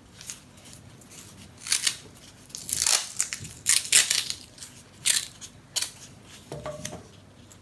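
Masking tape being peeled off the roll and wrapped around a pine block, heard as a series of short, noisy rips and rubs, about seven in all.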